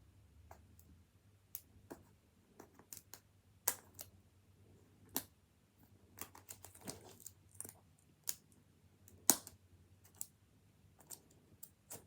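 Irregular clicks and crinkles of plastic packaging being handled as fingers pick at a Miniverse capsule's zipper tear strip, with one sharper snap about nine seconds in.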